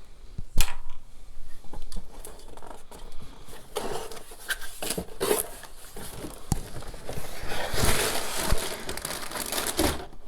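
Plastic bags of LEGO pieces crinkling and rustling while they are handled and taken out of the set's box, with the bricks rattling inside them. A sharp click or snap about half a second in, and a longer, busier stretch of crinkling near the end.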